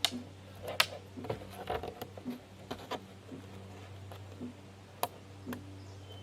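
Scattered sharp clicks and short plastic rattles from zip ties being worked through a ribbed plastic coupler on corrugated plastic culvert pipe, over a steady low hum.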